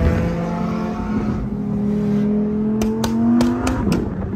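Lamborghini engine pulling under acceleration, its note rising steadily for about three and a half seconds. A few sharp cracks come about three seconds in, and the note drops back near the end as the revs fall.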